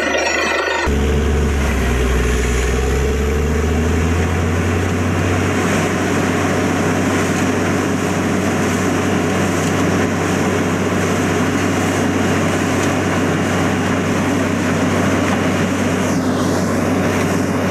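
Borewell drilling rig running steadily: a loud, constant low engine drone with heavy hiss, which cuts in about a second in.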